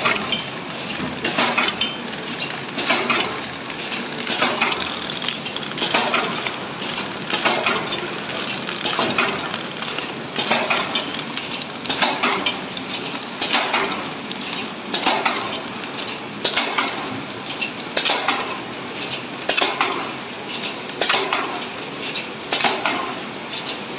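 Horizontal flow wrap packing machine running, a metallic clinking clatter repeating about every one and a half seconds as it cycles, over steady machine noise.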